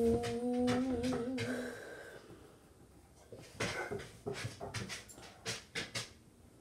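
A child's voice holding one long, slightly wavering note for about two seconds. After a short pause comes an irregular series of short scratches as a pencil is stroked across paper on a wooden table.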